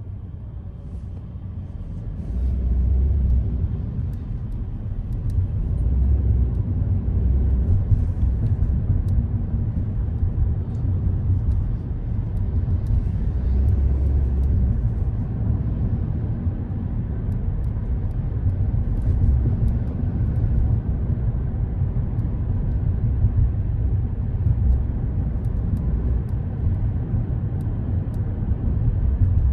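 Car driving on city streets: a steady low rumble of road and engine noise that swells louder several times, with faint small clicks here and there.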